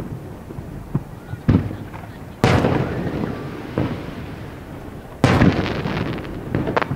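Aerial fireworks bursting: a string of separate booms, the two loudest about two and a half and five seconds in, each dying away slowly, the second with a crackling tail, and a few smaller pops near the end.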